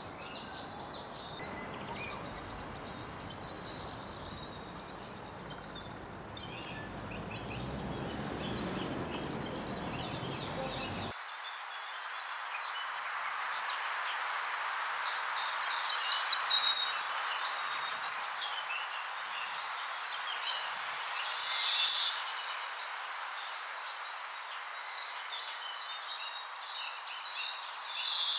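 Birds chirping and calling over a steady outdoor background noise. About eleven seconds in, the low rumble cuts out abruptly, leaving the chirps over a hiss, with louder bursts of chirping around sixteen and twenty-one seconds in and near the end.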